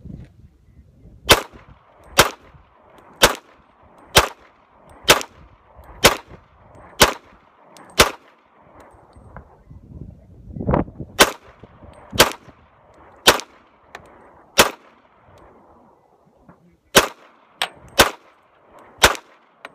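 Glock 20 pistol fitted with a .40 S&W conversion barrel firing a full magazine at a slow, steady pace, about one shot a second, with two short pauses. The pistol cycles and feeds every round without a malfunction.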